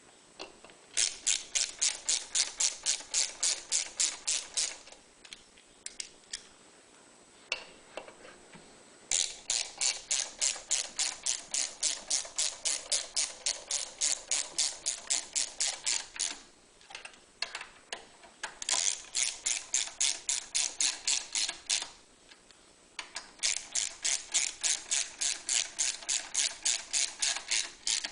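Ratchet wrench clicking in quick, even runs of about five clicks a second, four runs with short pauses between, as the valve cover bolts of a Champion 3100 watt generator engine are driven back in.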